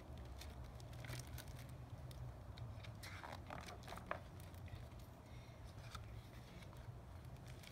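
Faint rustling and crinkling as the cover and paper pages of a large hardcover picture book are opened and turned, with a few soft clicks, over a steady low hum.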